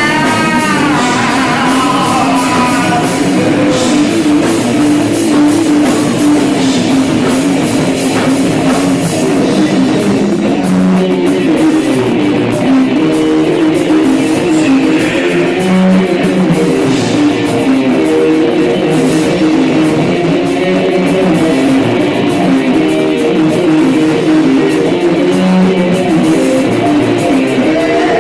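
Rock-funk band playing an instrumental passage: guitar, bass guitar and drum kit together at a steady loud level, with no vocals.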